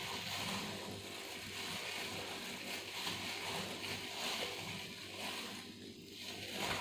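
Comb drawn through hair wet with hair dye, a soft wet rustling and scratching that rises and falls with the strokes.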